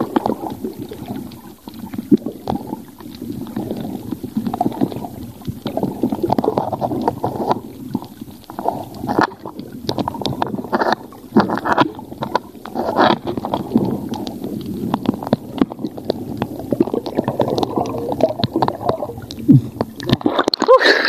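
Muffled underwater gurgling and sloshing, picked up by a submerged camera, with scattered irregular knocks and clicks. Near the end the sound opens up and turns brighter as the camera comes out of the water.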